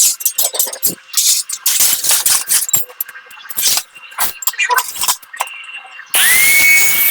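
Irregular light metallic clinks and clatters. About six seconds in, a loud high-pitched whine starts abruptly and rises quickly in pitch, like a small power tool spinning up.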